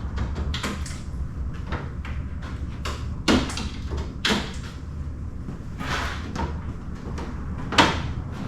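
Plastic push clips being pried out of a truck's front-end trim: scattered sharp snaps and knocks, the loudest a little over three seconds in, at about four seconds and near the end, over a steady low hum.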